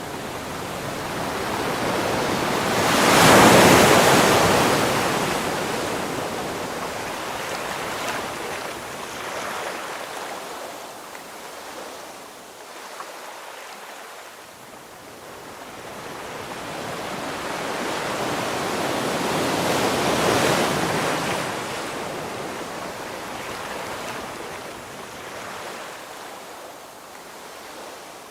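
Ocean waves on the shore: two waves break, about three seconds in and again about twenty seconds in, each building to a loud wash and then fading slowly into a softer surf hiss.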